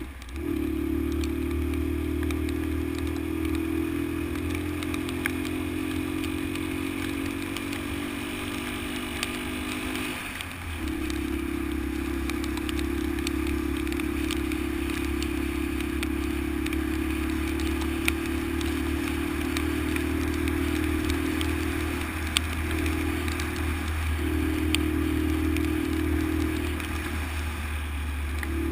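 Honda XL125's single-cylinder four-stroke engine running steadily under way on a rough road. The engine note dips briefly about ten seconds in, and again three times near the end.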